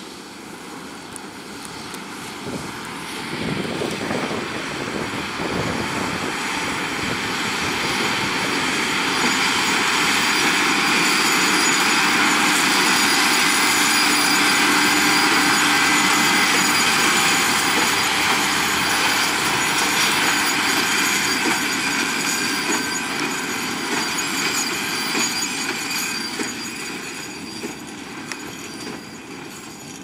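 John Deere 6250R tractor with its six-cylinder diesel and a Case IH LB436 HD large square baler working through a straw swath and passing by. The engine and baler machinery grow louder to a peak around the middle, with a steady whine, then fade as the outfit moves away.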